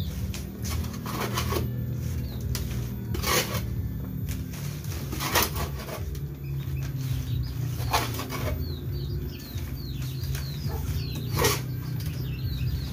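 Planting mix of manure and rice-husk charcoal being scooped out of a wheelbarrow into polybags: a short scrape every two to three seconds, over a steady low hum, with small birds chirping faintly.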